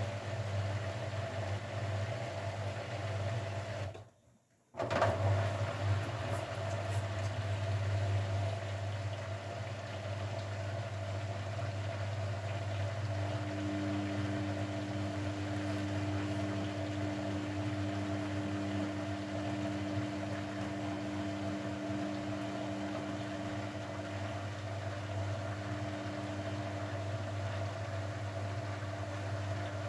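Grundig washing machine running: a steady motor hum with a higher whine over it. The sound breaks off completely for under a second about four seconds in, then carries on.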